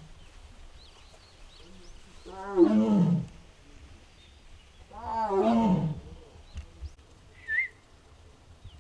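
Amur tiger calling twice, each call about a second long, rising and then falling in pitch. Small birds chirp faintly, with one short chirp near the end.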